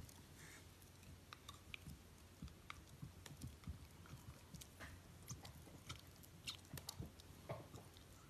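Dachshund chewing a translucent green beaded rubber chew toy: faint, irregular clicks and crunches of teeth gnawing the toy.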